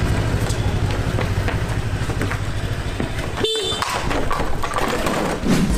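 Steady low rumble of a running motor vehicle, with one short horn beep a little past halfway.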